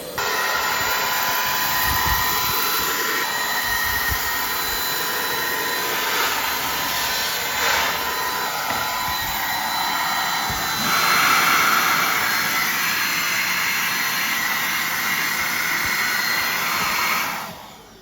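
Dyson V15s Detect Absolute cordless stick vacuum running with a steady high-pitched whine. It gets louder and brighter about eleven seconds in, then shuts off and winds down near the end.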